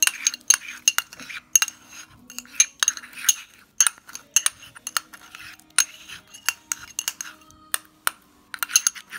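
Metal spoon clinking and scraping against the side of a bowl while stirring thick shampoo-and-salt slime, in irregular clinks a few times a second with a brief pause near the end.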